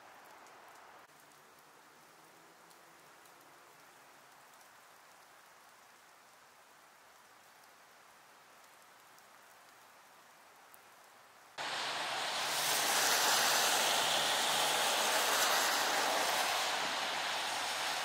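Faint, even outdoor hiss of a snowy landscape for most of the stretch. About eleven seconds in it switches abruptly to a loud, steady hiss of traffic on a wet, slushy road, tyres swishing through the slush with a low engine hum beneath.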